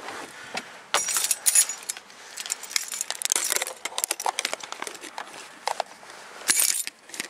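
Car keys jangling and clinking in bursts as cold hands fumble with them, with rustling and clicks of handling.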